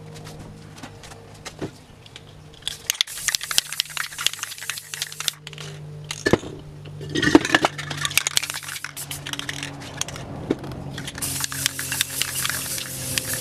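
Aerosol spray paint cans hissing in three spells of a couple of seconds each as paint is sprayed onto paper, with sharp clicks and metallic clinks of the cans being handled in between.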